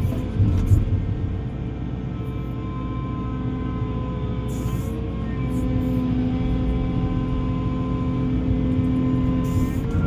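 Heavy construction machine's engine running steadily with a low rumble, under sustained background music.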